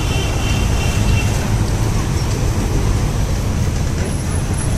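Busy road traffic running steadily: a constant low rumble of engines and tyres.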